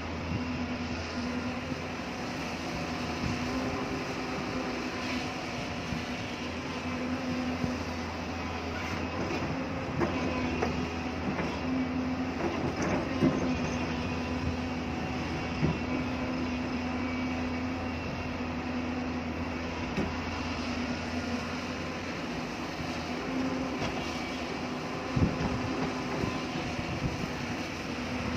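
Hydraulic excavator's diesel engine running at a steady pitch, with several short sharp knocks as the bucket works hard rock.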